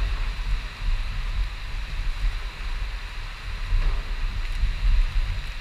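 Wind buffeting the microphone over a steady rush of rain and wet-road noise from a motorcycle riding through heavy rain.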